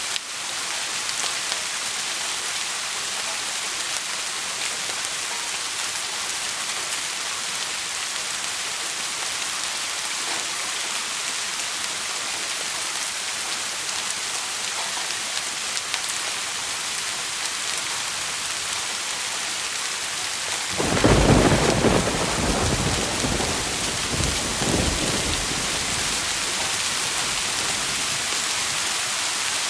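Steady rain, with a thunderclap about two-thirds of the way through that breaks loud and then rumbles away over several seconds.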